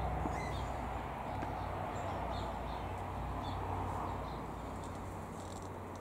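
Faint, short bird chirps and calls scattered through a steady low background rush, the ambient sound of a mixed aviary.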